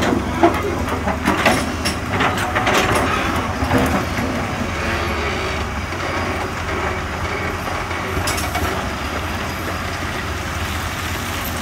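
Hydraulic excavator's diesel engine running steadily while its steel bucket digs and scrapes into broken rock. Rocks clatter and knock against the bucket through the first few seconds and again briefly later, over the steady engine.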